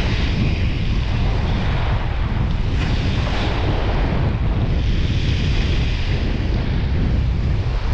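Strong wind buffeting the microphone with a deep, steady rumble, over surf on the shore. The hiss swells and eases every couple of seconds.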